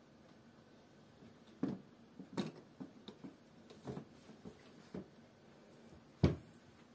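A food dehydrator's drying tray being slid into its rails and set in place, giving a scattering of light clicks and knocks, the loudest about six seconds in.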